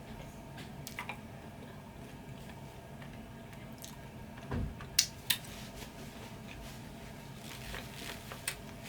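Close-up wet chewing and biting of sauced chicken wings, with a few sharp smacking clicks around the middle.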